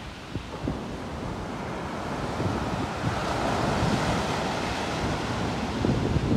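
Surf breaking and washing up a sand beach, a wash swelling about three seconds in, with wind buffeting the microphone.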